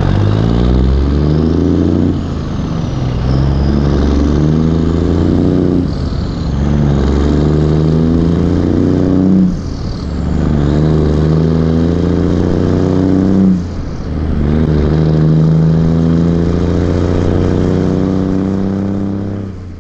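Backhoe diesel engine working hard while digging, its revs rising and easing in cycles of about four seconds with a short dip between each.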